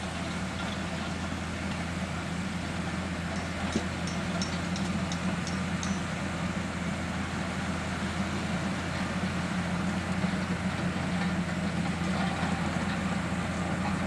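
Crawler bulldozer's diesel engine running steadily as the dozer pushes a pile of soil, a low even hum that grows slightly louder.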